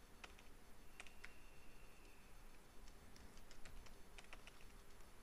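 Faint computer keyboard typing: scattered, irregular keystrokes.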